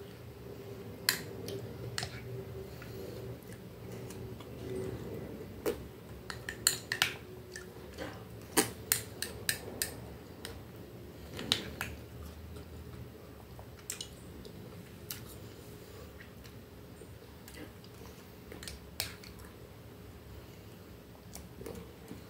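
Metal spoon clicking and scraping against a small glass bowl of fruit salad, in irregular sharp clicks a second or so apart, with quiet chewing in between.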